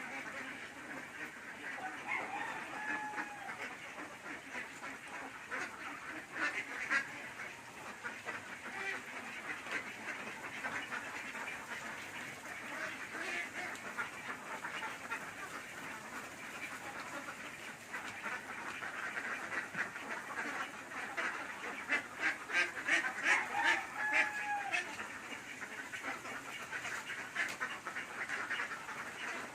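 A flock of farmed ducks quacking and chattering continuously, many birds calling over one another, with a louder run of rapid quacks about three quarters of the way through.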